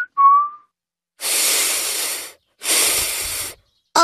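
A whistled note ends, then two breathy blows of air through pursed lips, about a second each, with no whistle tone in them: a cartoon character's failed attempt to whistle.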